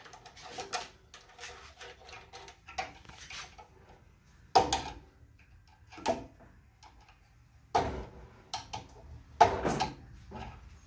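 Intermittent clacks, knocks and ticks of hard tools and metal parts being handled during electrical wiring work, with a few louder knocks spread through.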